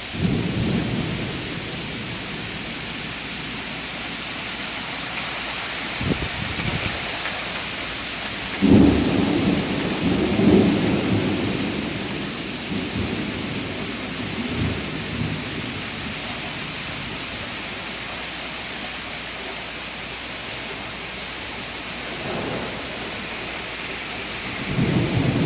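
Steady rain with repeated thunder. A rumble comes right at the start, a short crack about six seconds in, and a long rolling peal, the loudest, from about nine to twelve seconds. Another rumble builds near the end.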